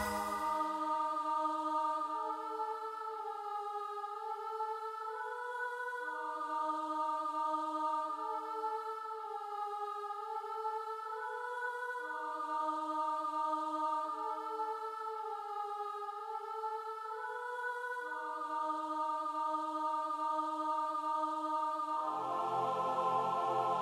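Roland FA-08 keyboard playing soft, slowly changing sustained chords without drums, each chord held about two seconds in a pattern that repeats every six seconds. A fuller chord with lower notes comes in near the end.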